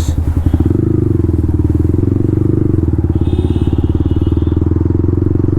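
Yamaha MT-15's single-cylinder engine through a loud Akrapovic full-system exhaust, running at a steady pitch.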